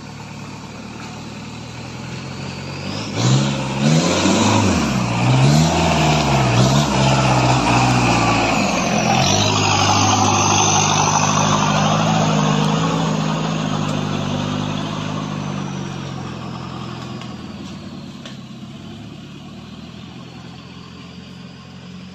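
Nissan Big-M pickup's engine revving up and down under load as it climbs out of a creek bed on a dirt trail, then running steadily as it passes and fades into the distance.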